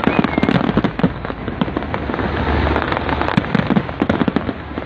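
A big fireworks display: a dense, continuous crackling and popping of many shells and fountains going off at once, over deep booms.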